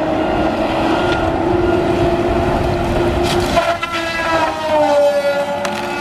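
Tigercat LX830D feller buncher's disc saw head and diesel engine running with a steady whine as the disc spins back up to speed after a cut that had slowed it badly. About three and a half seconds in, the saw bites into a tree: there are sharp cracks and the whine drops in pitch as the disc loads down.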